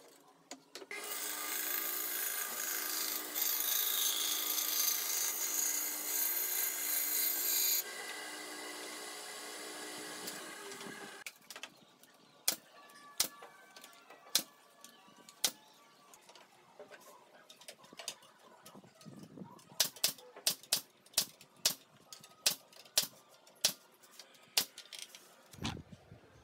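A power tool runs on wood for about ten seconds, louder for the first seven, then stops. After that a pneumatic nail gun fires a series of sharp single shots, a few spaced apart and then a quicker run of them, nailing pallet-wood slats.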